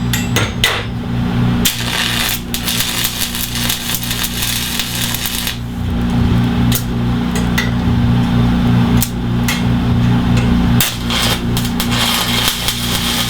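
Electric arc welder laying tack and bead welds on steel bar, crackling and sizzling in several runs with short breaks, over a steady electrical hum.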